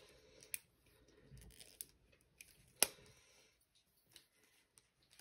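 Faint handling of a rolled diamond-painting canvas and its packaging: light rustling and a few scattered clicks, the sharpest about three seconds in.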